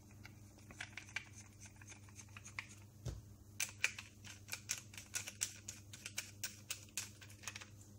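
Faint, irregular small metal clicks and ticks as a nut is tightened by hand on the threaded axle of a bicycle wheel hub carrying a motorbike alternator rotor. The clicks come thicker from about three and a half seconds on, with one soft thump about three seconds in, over a low steady hum.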